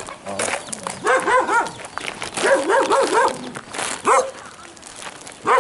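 A dog barking: two quick runs of several barks each, then single barks near the end.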